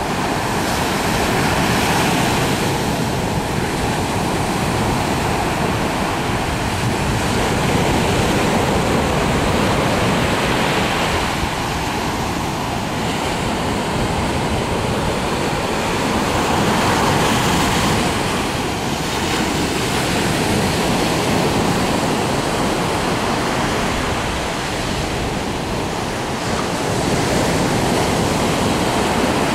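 Ocean surf breaking and washing onto a sandy beach: a continuous rush of water that swells and eases every several seconds.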